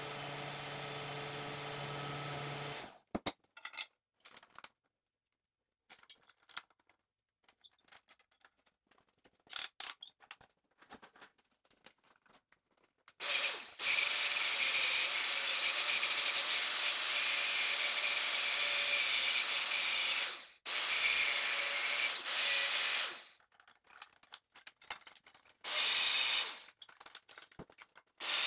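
Angle grinder cutting steel, throwing sparks. It runs steadily for about seven seconds, stops briefly, runs for about two more seconds, then gives a short burst a few seconds later and starts again near the end. Before that, a steady hum cuts off about three seconds in, followed by light clinks of the metal being handled.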